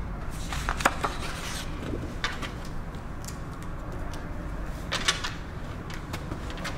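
Desk handling sounds: paper rustling and small clicks and knocks as a sheet of paper is laid down and a pen is picked up, coming in a few short bursts with the sharpest click about a second in, over a steady low room hum.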